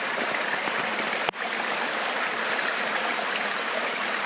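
Small forest stream running, a steady rushing hiss of water, broken briefly just over a second in.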